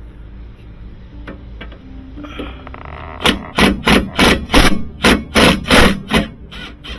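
Milwaukee M18 FUEL 3/8-inch compact cordless impact wrench hammering in about ten short trigger bursts, roughly three a second, starting about three seconds in, as it backs out a suspension control-arm bolt.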